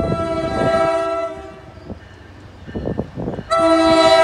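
Horn of an approaching NJ Transit ALP-45DP locomotive sounding two blasts: a chord of steady tones held for just over a second, a pause of about two seconds, then a second blast starting near the end.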